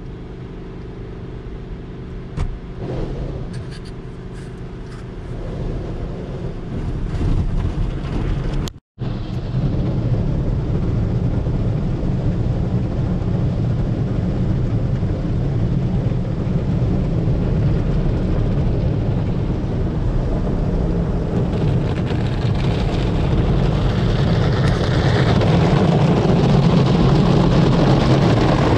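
An automatic car wash heard from inside the car: water spray and the wash brushes and cloth strips scrubbing over the body and windshield make a steady rushing noise. It cuts out for a split second about nine seconds in and grows louder in the last few seconds as the cloth strips sweep across the windshield.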